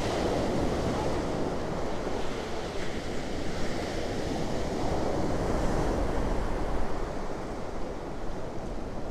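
Ocean surf breaking and washing up on a sandy beach, a steady rushing noise, with wind buffeting the microphone.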